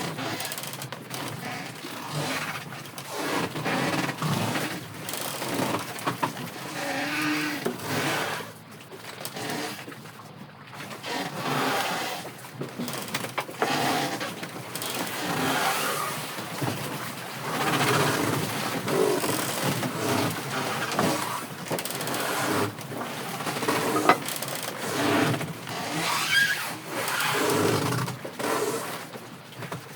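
Strong typhoon wind gusting against the microphone, with surf from big waves: a rushing noise that swells and dips every second or two.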